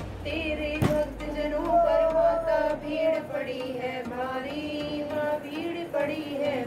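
Women singing a Hindu devotional hymn to Durga together in a chanting melody, with one sharp tap about a second in.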